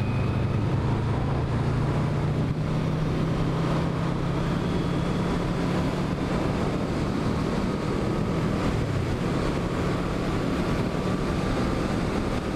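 1986 Yamaha V-Max's 1200 cc V4 engine running at a steady cruising speed on the road, with wind rushing over the microphone.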